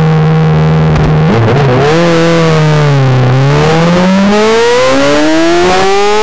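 Yamaha R6 supersport motorcycle's inline-four engine heard onboard. It holds steady revs for about a second, dips and recovers, sags again around the middle, then rises steadily in pitch as the bike accelerates onto the track.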